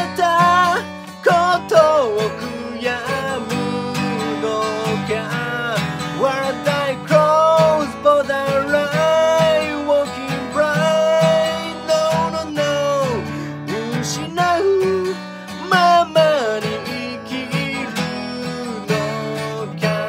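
A man singing while strumming an acoustic guitar.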